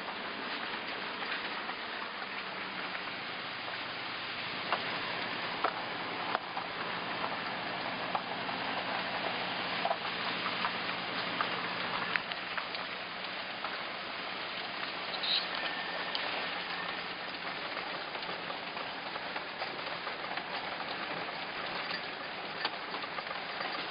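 Car driving slowly: a steady hiss with scattered light ticks over a faint low engine hum.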